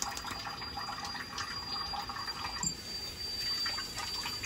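Chicken in yogurt marinade and tomatoes sizzling and bubbling in hot oil, with scattered small crackles and pops as whole spices are stirred in with a slotted metal spoon.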